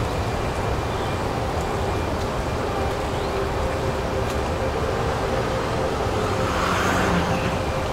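Downtown street traffic: cars and trucks running and driving by in a steady hum, with one vehicle passing closer and louder about seven seconds in.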